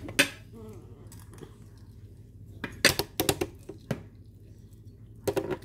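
Cutlery clinking against a plate: a sharp clink just after the start, a quick cluster of clinks about three seconds in, and another couple near the end.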